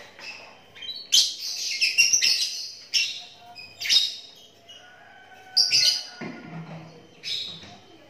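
Caged lovebirds chirping: a string of high-pitched calls, several in quick succession about a second in, then single calls at intervals.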